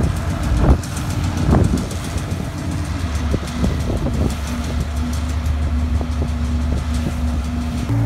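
An engine running steadily as a low, even hum, with a couple of short voice-like sounds in the first two seconds.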